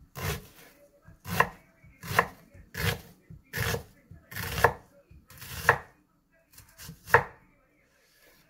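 A kitchen knife slicing through an onion onto a thick wooden cutting board: about nine slow cuts, roughly one a second, each ending in a knock of the blade on the wood.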